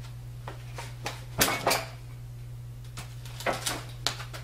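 Metallic clanks and knocks from the cast-iron frame of a Chandler & Price platen press being tipped and shifted on wooden pallets, the loudest pair about a second and a half in and a few more near the end. A steady low hum runs underneath.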